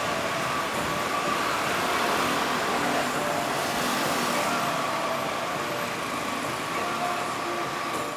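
Road traffic on a busy street: cars and motorbikes passing in a steady wash of engine and tyre noise.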